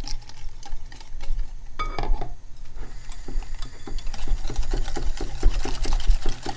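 Wire whisk beating an egg-yolk, sugar and pudding-powder mixture in a glass bowl: the wires tap rhythmically against the glass, settling into about four strokes a second in the second half. A single louder clink about two seconds in.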